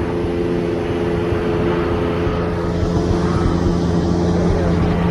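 A light propeller airplane flying overhead, a steady engine drone without rise or fall.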